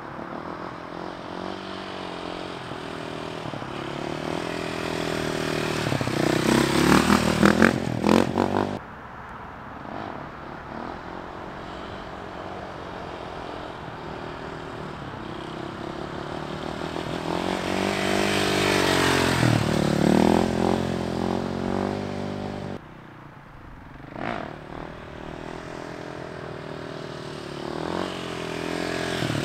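Dirt bike engine revving and running under throttle during wheelies, its pitch climbing and dropping with the throttle. It swells louder as the bike comes close, around seven seconds in, again around nineteen to twenty seconds, and near the end, and cuts off abruptly twice.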